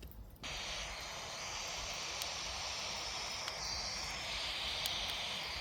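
Spirit box radio scanner sweeping the FM band, giving a steady hiss of static that cuts in suddenly about half a second in, with a few faint ticks.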